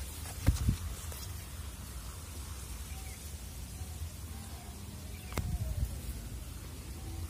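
Wind rumbling steadily on the microphone, with two brief knocks about half a second and five and a half seconds in.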